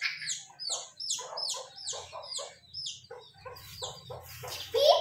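A chick peeping over and over: short, high, downward-sliding peeps, about three a second.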